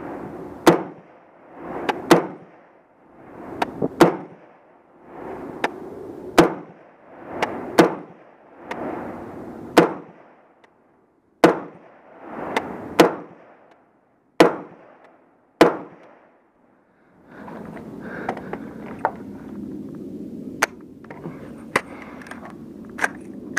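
Rifle shots from an AR-15 carbine chambered in .300 Blackout, fired slowly and steadily at about one sharp crack every second to second and a half, roughly a dozen in all. After a short pause about two-thirds of the way in, a few more shots come amid rustling and movement noise.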